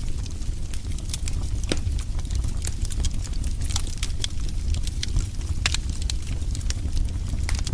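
Wood fire burning in a fireplace, with irregular sharp crackles and pops over a steady low rumble.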